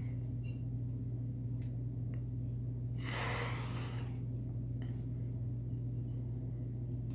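Steady low hum, with one short breath-like puff of noise about three seconds in and a few faint light clicks.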